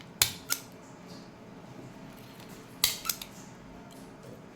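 Handheld stapler pressed twice, each stroke a sharp double click, stapling the edge of a homemade squishy toy shut so the sponge filling can't come out.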